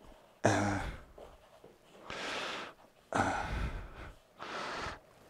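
A man breathing heavily and sighing through his nose while working, four breaths in all, with a short grunt about half a second in.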